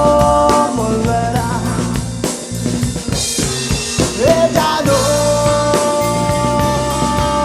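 Rock band playing an instrumental passage with a drum kit: held chords drop away about a second in for a drum-led break with a rising pitch slide, and the held chords come back about five seconds in.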